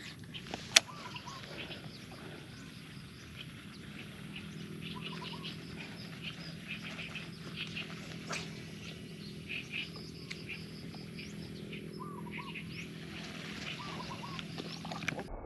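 Birds chirping in short repeated calls, over a steady low hum that comes in about four seconds in. A single sharp click just under a second in is the loudest sound.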